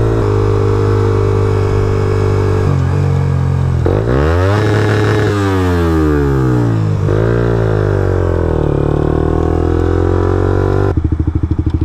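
Sport motorcycle engine heard from the rider's seat: running steadily at first, then rising and falling in pitch as the bike speeds up and slows down, with a faster pulsing beat near the end.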